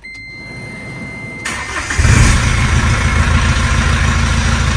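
Mahindra Scorpio cold start: a steady high beep for about a second and a half, a brief crank, then the engine catches about two seconds in and settles into a steady idle.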